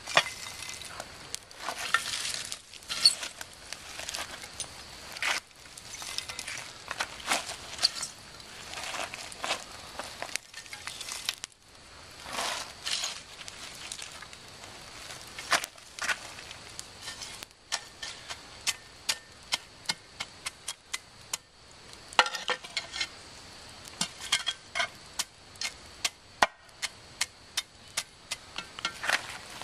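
Folding metal shovel scraping and scooping embers from a wood fire and dumping them onto a cast-iron Dutch oven lid: gritty scrapes with clinks of coals against metal. In the second half comes a run of sharp clicks, about two a second, as the coals are knocked off and spread on the lid.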